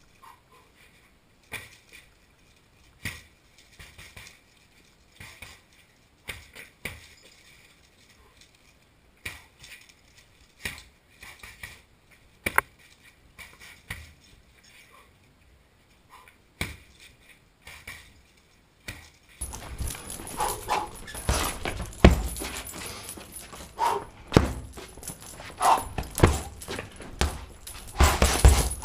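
Gloved punches landing on a heavy punching bag: single sharp thuds at irregular spacing, sometimes in quick pairs. From about twenty seconds in the strikes come faster and louder over a noisier background.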